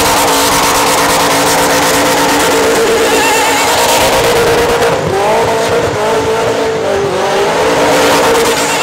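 Burnout car's engine held at high revs on the rev limiter, with the spinning rear tyres hissing under it. About five seconds in the revs dip and waver for a couple of seconds, then climb back and hold steady.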